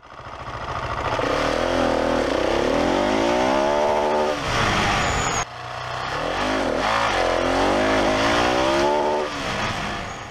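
Motorcycle engine under hard acceleration, its pitch climbing through the revs. It eases off about four and a half seconds in, cuts out briefly, then climbs again and falls away near the end.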